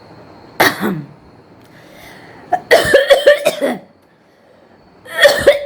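A woman coughing on purpose, in three bouts: a single cough about half a second in, a quick string of coughs in the middle, and another short run of coughs near the end. The coughs are forced for the sake of it, and she finds them hard on her throat.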